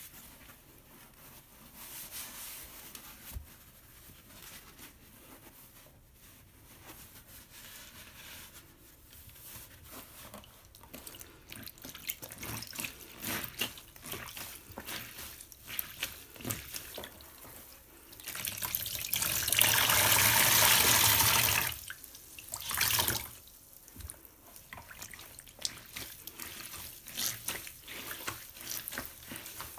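Long egg-crate foam sponge, wet with water and dish detergent, pressed and rolled by hand in a plastic tub: soft wet squelching and crackling of the foam. About two-thirds of the way through, water rushes out loudly for about three seconds as the sponge is squeezed, then again briefly.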